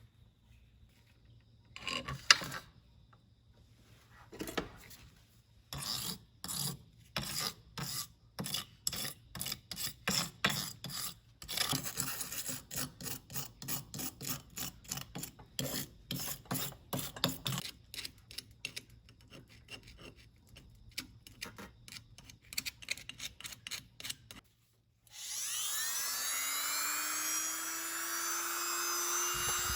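Back-and-forth rubbing strokes by hand on a tool part, about two a second. Near the end a motor-driven tool starts and runs steadily, with a whine that rises and then dips.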